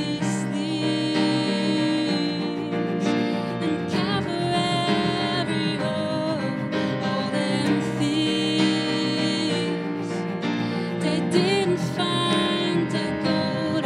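Live song: a woman singing a slow, tender melody over a Yamaha digital piano and a bowed cello.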